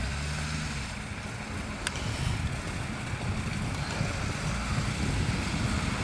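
UAZ 4x4's engine running with its pitch rising and falling, as the vehicle sits deep in pond water and mud, over a steady rush of wind on the microphone.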